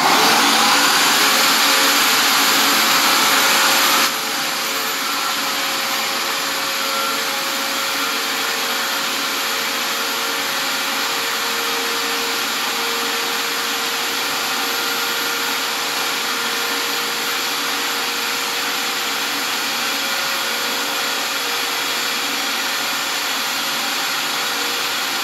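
Shop vacuum running steadily, hooked by hose to a long-reach drywall sander. It starts abruptly and drops a step in level about four seconds in, then holds steady with a faint hum.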